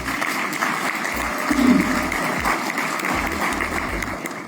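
Crowd applauding: dense, steady clapping that cuts off suddenly at the end.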